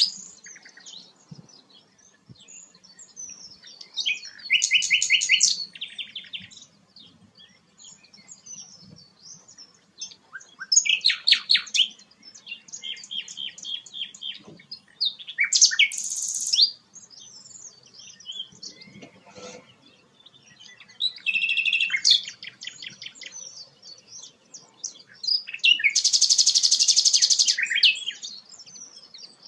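A songbird singing in separate, varied phrases made of rapid trills and buzzy, chattering notes, with short pauses between them. The phrases come about four seconds in, around eleven to seventeen seconds, at about twenty-two seconds, and near the end.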